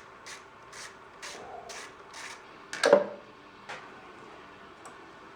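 Ratchet wrench being worked in quick back-and-forth strokes, about two a second, loosening the nuts on a mower engine's carburetor studs, followed a little under three seconds in by a loud metal clank and then a lighter click.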